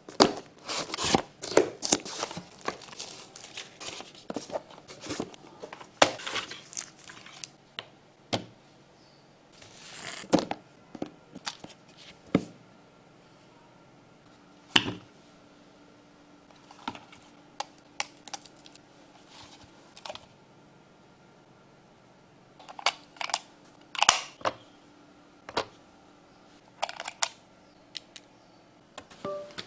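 A computer mouse's retail box and packaging being opened and handled: a quick run of rustles, tears and sharp taps in the first several seconds, then scattered taps and handling noises.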